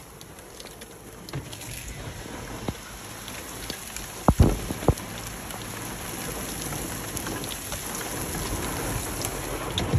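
Rain falling steadily, an even hiss of drops that slowly grows louder, with two sharp knocks about four and a half seconds in.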